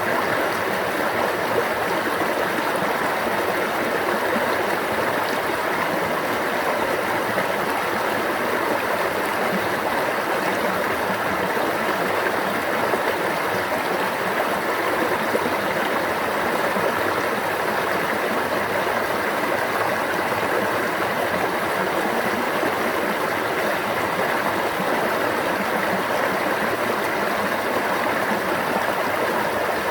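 Water in a stream flowing and babbling steadily, an even, unbroken rush.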